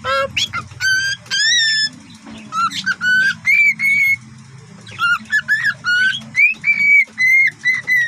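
Cockatiel whistling phrases of short high notes, some gliding up and down, in four bursts separated by short pauses.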